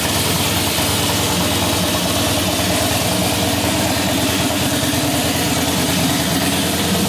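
Harley-Davidson FXS Blackline's air-cooled V-twin engine idling steadily.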